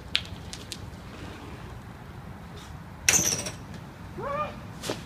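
BMX bike hitting a brick ledge about three seconds in: a sharp impact with a brief scrape. A short vocal call follows, with lighter clicks of the bike before and after.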